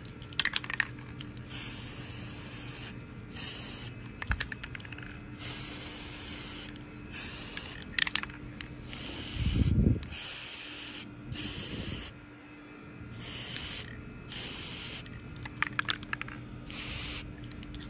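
Aerosol spray paint can hissing in a series of bursts with short pauses between them, putting a coat of black paint on small parts. A few sharp clicks and a dull thump about ten seconds in.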